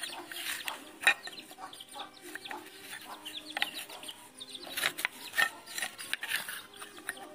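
A small flock of hens and half-grown chicks clucking and peeping in many quick, short calls, with a few sharp taps among them.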